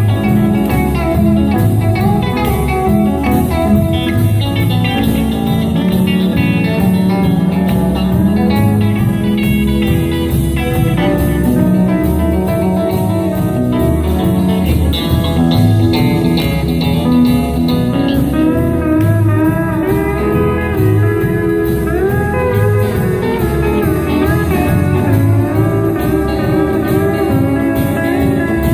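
Live country band playing an instrumental passage: pedal steel guitar and electric guitar over drums keeping a steady beat, with gliding steel-guitar notes in the second half.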